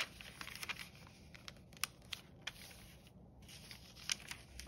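A pen drawing on folded paper: faint scratching strokes with scattered light ticks of the pen and paper being handled.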